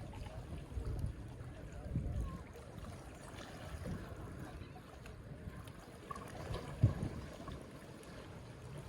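Calm sea waves lapping and washing on a beach, the low wash swelling and easing every second or two, with a short louder bump about seven seconds in.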